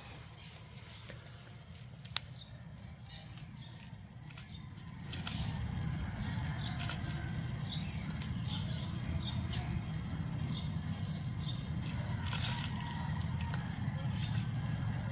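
Outdoor ambience: a steady high-pitched insect drone, short faint clicks about every half second, and a low rumble that comes in about five seconds in and stays.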